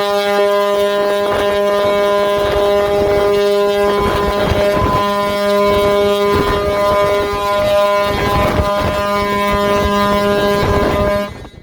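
Ship's horn sounding one long, steady, deep blast that cuts off near the end, with wind buffeting the microphone.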